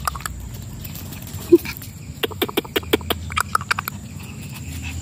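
A person clicking their tongue rapidly, about a dozen quick clicks over a second and a half, to call a puppy. The clicks follow a short low sound.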